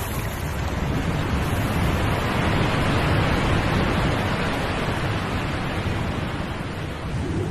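Rushing wind sound of a high-speed flight, a steady noisy rush that swells toward the middle and eases off near the end.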